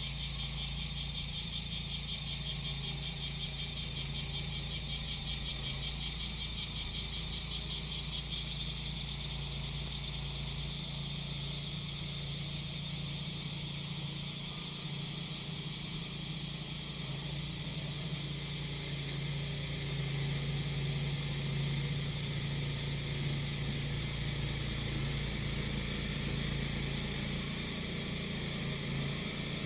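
Cicadas singing in a fast pulsing buzz that fades away about a third of the way through. Underneath, the small engine of a grass-cutting machine runs with a steady low hum.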